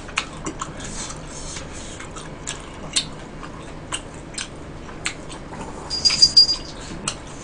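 Close-up chewing and biting of stir-fried sundae, gopchang and glass noodles, with scattered sharp clicks of chopsticks against a small plate. A brief louder, hissy burst comes about six seconds in as the noodles are lifted to the mouth.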